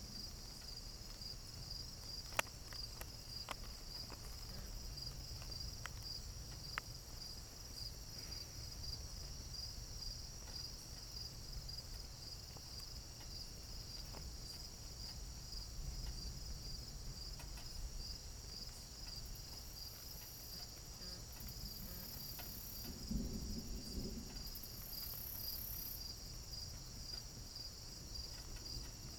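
Crickets chirping in a steady, rapid pulsing trill, with a low steady rumble underneath and a sharp click about two seconds in.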